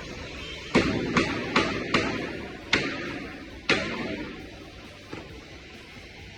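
Six sharp strikes on pallet wood, four in quick succession about half a second apart, then two more spaced further apart.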